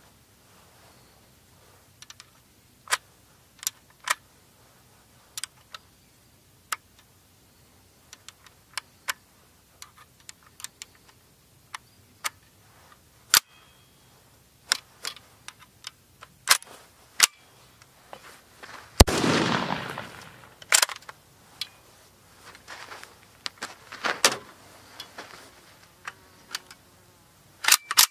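Metal clicks and clacks of an AKS-74U's action and parts being worked by hand, one at a time with pauses between, as a feeding problem is cleared. About two-thirds of the way through comes one loud sharp clack followed by a rattle lasting a second or more.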